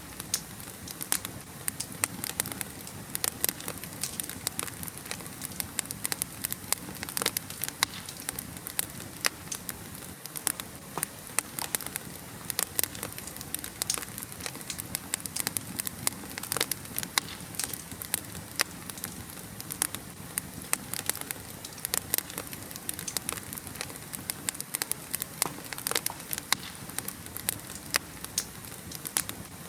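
Fire burning in a fireplace: frequent irregular pops and crackles over a steady hiss.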